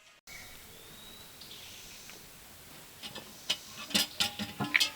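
Faint outdoor background, then, from about three seconds in, an irregular run of sharp clicks and knocks of hard objects.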